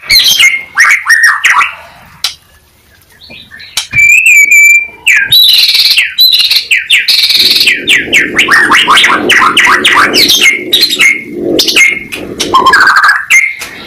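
White-rumped shama (murai batu) in full, loud song. Quick varied phrases give way to a short pause and a clear whistled note about four seconds in, then a long run of rapid repeated notes with a lower, rougher sound beneath them for several seconds.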